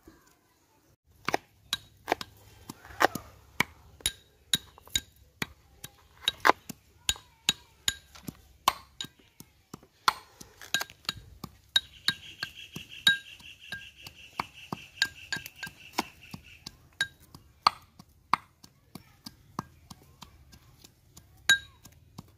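A cleaver chopping shallots on a plastic cutting board and a pestle pounding in a small metal cup: irregular sharp knocks, some with a metallic ring. From about twelve to seventeen seconds in, a steady high trill runs alongside.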